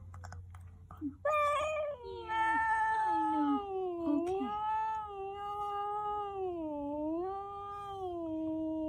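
Cat yowling: a short call about a second in, then one long, drawn-out yowl whose pitch wavers up and down.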